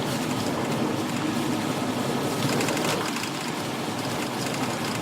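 Car driving on a snow-covered highway: steady road, tyre and engine noise heard from inside the cabin.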